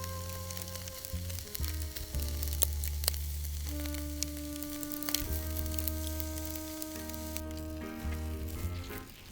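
Food sizzling and spattering in a hot pan, with scattered crackling pops. Soft background music of long held notes plays under it.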